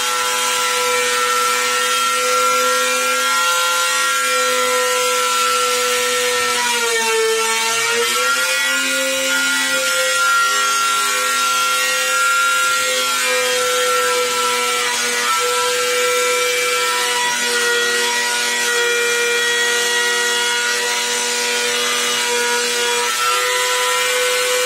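Electric jigsaw cutting a Corian solid-surface countertop: a steady motor whine that dips in pitch briefly about seven seconds in, then recovers.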